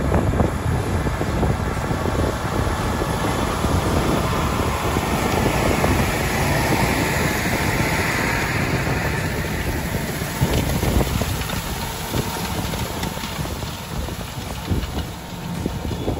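Tractor pulling a 6-metre Horizon DSX direct drill through a field, the engine running steadily under load as the drill works in the ground. It grows louder and brighter as the machine passes close, about halfway through, then eases off.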